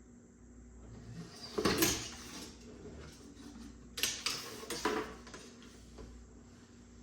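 Handling noises from a glued-up wooden drawer box and its clamps being adjusted: a scraping rustle about a second and a half in, then a sharp knock about four seconds in and another just before five seconds.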